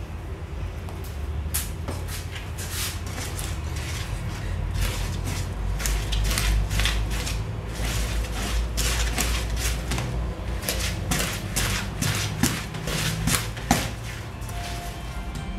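Wooden spoon beating self-raising flour into creamed cake batter in a plastic mixing bowl: a run of irregular scraping knocks against the bowl, a few a second, starting about a second and a half in.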